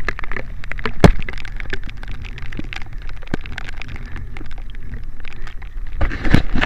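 Wind rumbling on the microphone of a camera carried by a runner in the rain, with dense crackling clicks and taps of raindrops and handling; one loud click about a second in and a busier burst near the end.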